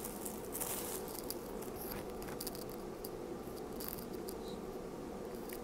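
Thin clear plastic bag crinkling in quick, irregular rustles as hands unwrap a suction-cup mount from it.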